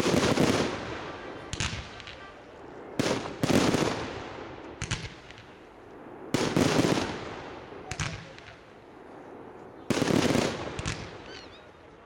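Aerial firework shells bursting overhead, about nine bangs at uneven intervals, some loud and some fainter, each trailing off in a decaying rumble.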